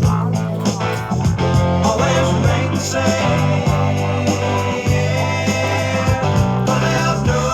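Background music: a guitar-driven rock song with a bass line.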